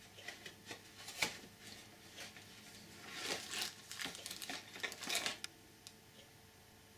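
Plastic packaging crinkling and rustling as a coiled cable is pulled out of a small cardboard accessory box, with a few sharp clicks and knocks in the first second and a half, the sharpest about a second in. The rustling is densest from about three to five and a half seconds in, then stops.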